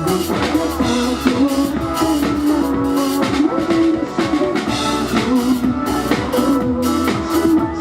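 Live band playing a rock song: a drum kit keeps a steady beat under held instrument notes.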